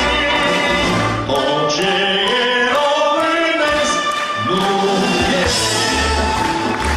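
Music with singing: long held sung notes over instrumental accompaniment.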